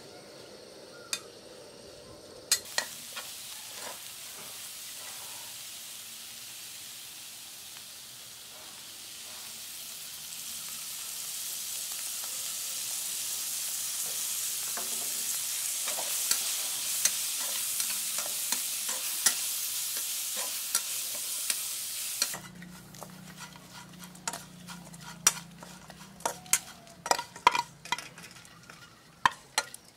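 Mole crickets frying in oil in a wok, sizzling steadily and growing louder, while a spatula clicks and scrapes against the pan as they are stirred. About 22 seconds in the sizzling cuts off suddenly, and the spatula clinks and scrapes against the pan and a metal plate as the fried crickets are served out.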